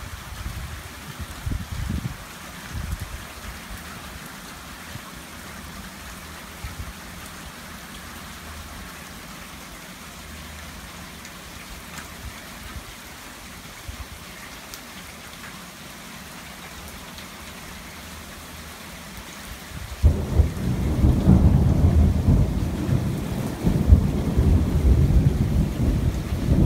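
Thunderstorm rain falling steadily, with some low rumbling in the first few seconds. About twenty seconds in, a much louder low rumble sets in suddenly and holds.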